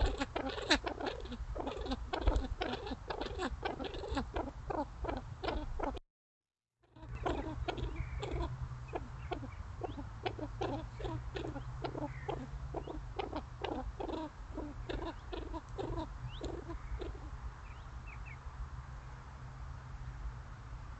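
Common pheasants giving a long run of short, low calls at about two to three a second, broken off for a moment about six seconds in and fading out near the end, over a steady low hum.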